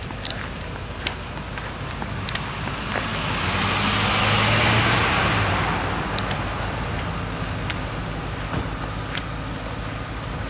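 A vehicle passing close by on the road: tyre and engine noise swells to a peak about halfway through and then fades away, over a steady low engine hum. A few sharp clicks are scattered through it.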